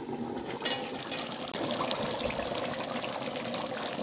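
A metal pot lid clicks as it is lifted under a second in. Then a meat and vegetable stew is heard bubbling at a boil in the uncovered aluminium pot, with a dense fizz of small pops.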